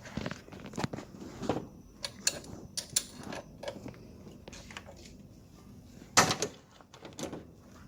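Scattered, irregular clicks and knocks of hand tools and engine parts being handled in a car's engine bay, with one louder knock about six seconds in.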